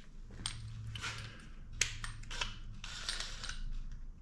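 Light handling noises of tools at a workbench: a few scattered sharp clicks and knocks, the loudest a little under two seconds in, and some rustling near the end, over a faint steady hum.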